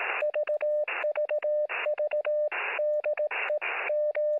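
Morse code heard over a radio receiver: a single mid-pitched beep keyed in short and long marks (dots and dashes), with static hiss welling up in the longer gaps between characters.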